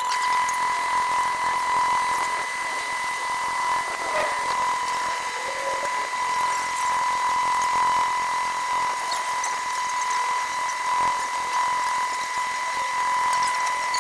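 A power tool's motor running steadily with a constant high whine over a hiss.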